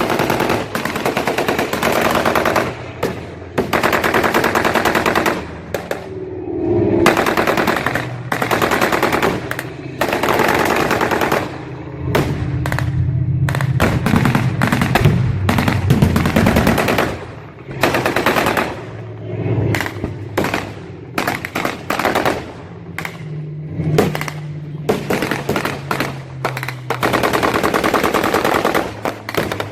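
Machine-gun fire in long rapid bursts, each lasting one to a few seconds, one after another with short breaks between them. It is mock anti-aircraft fire in a staged air raid. A low steady drone sounds under some of the bursts.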